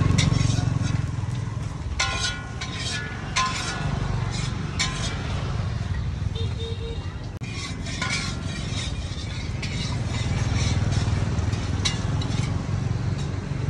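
Metal utensils clinking against pans and steel trays, several sharp ringing clinks that bunch up in the first few seconds and again about eight seconds in, over a steady low rumble.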